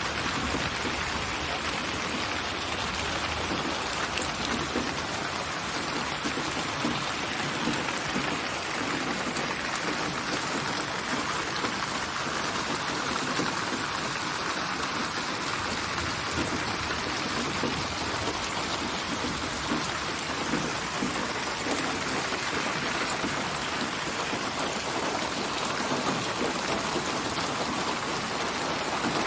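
Steady rain falling: an even hiss of rain with fine, scattered drop patter, unchanging throughout.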